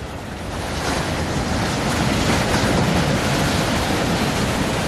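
Storm surf breaking and washing over rocks against a stone harbour wall: a steady rushing wash that swells over the first second.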